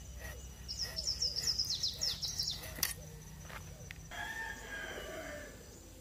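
A small bird chirps a fast run of high, falling notes for about two seconds, then a rooster crows once, a pitched call lasting about a second and a half. A single sharp click comes between them.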